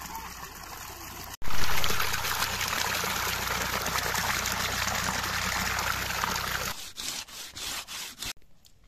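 Water from a garden hose pouring into a metal basin already part full, splashing steadily. It gets louder about a second and a half in and stops about seven seconds in, followed by a few knocks.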